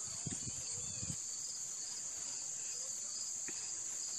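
Steady high-pitched insect chorus, a continuous shrill drone with a faint pulsing. A few low thumps on the microphone in the first second.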